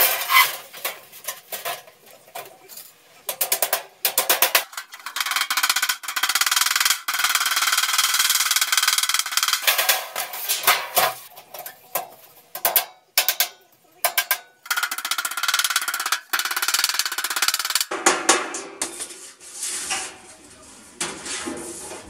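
Hammer tapping and clattering on a galvanized sheet-metal duct section, with two long runs of rapid blows in the middle.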